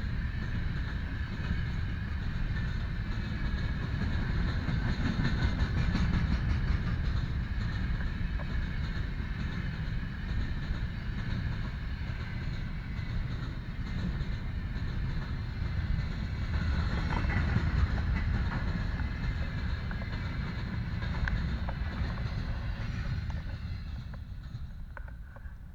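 Freight train rolling past, the wagons' wheels rumbling and clattering on the rails, steady and loud until it thins out near the end as the train goes by.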